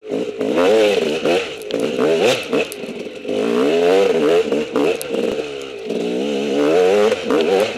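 Dirt bike engine revving up and falling back again and again in short throttle bursts, over the scattered knocks and clatter of a bike working through rocks.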